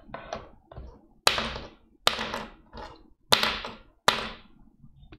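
A lighter dropped near the microphone, knocking sharply several times, four of the knocks loud, each dying away quickly. It is heard through a compressor filter that turns such peaks down to the level of normal speech.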